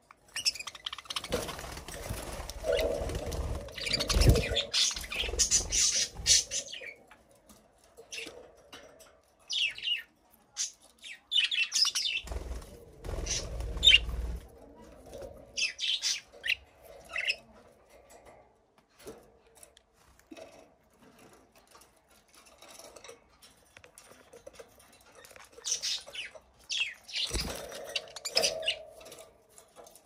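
Budgerigars chirping in several bursts of quick high chirps, with low thumps and fluttering at times.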